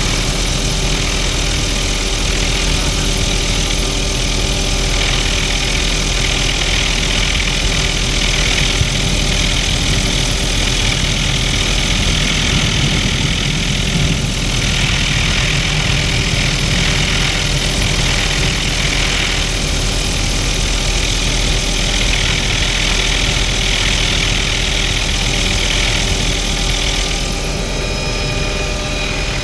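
Helicopter in flight with its doors off: steady turbine and rotor noise mixed with wind rushing through the open cabin. The wind hiss eases slightly near the end.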